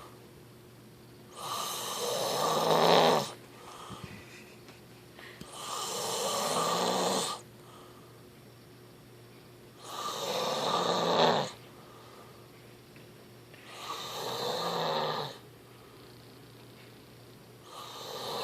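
A sleeping person snoring loudly: five rough, rattling snores, each lasting about two seconds, recurring about every four seconds, with quieter breathing between them.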